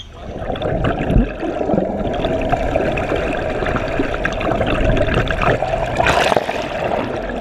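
Muffled, steady rush of water with crackling bubbles, heard from a GoPro camera held underwater. The crackling flares louder about six seconds in.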